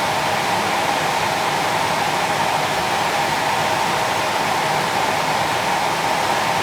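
York 90+ gas furnace's fan motor running, a steady whoosh of moving air with a constant whine over it.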